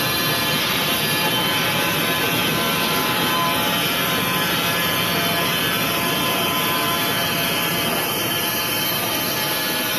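Wood-Mizer band sawmill cutting through a log: steady sawing without a break.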